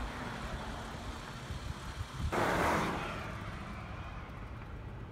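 Car and road noise: a steady low rumble, with a short loud whoosh about two and a half seconds in. After that the sound turns duller, the rumble of a moving car heard from inside its cabin.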